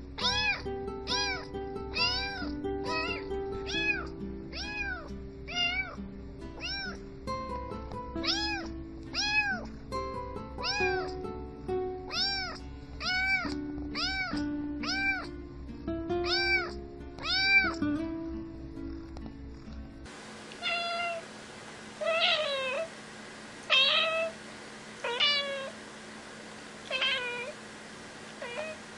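A tabby kitten meowing in a quick run of short, arched meows, more than one a second, over background music. About twenty seconds in, this gives way to a grey adult cat meowing in single calls roughly every second and a half.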